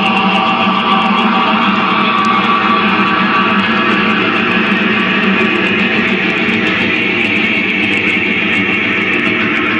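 Loud, distorted noise music: a dense, unbroken wall of sound with no clear beat. A couple of held, droning tones fade out about four seconds in.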